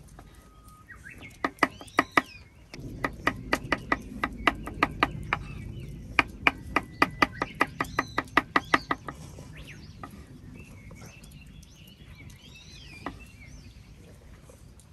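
A run of sharp, evenly paced knocks, about three or four a second, each with a slight ring, stopping after about nine seconds. Birds chirp around them.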